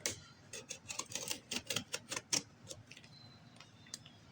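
Cardboard shipping box being worked open by hand: a quick run of clicks and scratchy scrapes over the first two or three seconds, then a couple of single ticks near the end.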